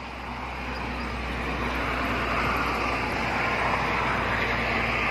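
Toll-road traffic passing: tyre and engine noise of buses, trucks and cars, growing louder over the first couple of seconds, then holding steady.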